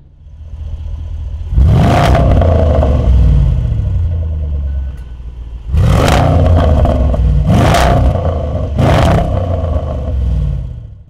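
Range Rover Sport SVR's 5.0-litre supercharged V8 exhaust, loud, revved hard in surges about two seconds in and six seconds in, the revs falling away after each, then two more sharp blips near the end. The blips carry sharp cracks from the quad-pipe exhaust.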